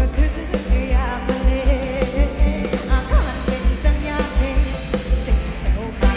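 Live Thai ramwong band music played through a loud PA: a singer over a steady, thumping bass-drum beat.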